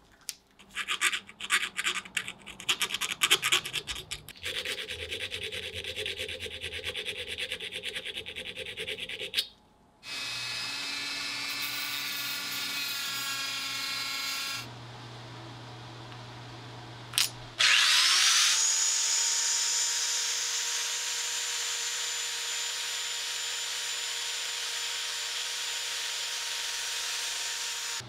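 Handheld rotary tool with a small grinding stone working a small steel knife part. It starts with irregular scraping strokes, then a steadier rasping and a pitched grinding. About eighteen seconds in the tool spins up with a rising whine and runs on at a steady pitch.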